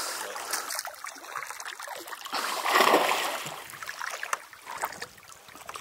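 Water splashing as a hooked peacock bass thrashes at the surface while it is hand-lined in, loudest about three seconds in.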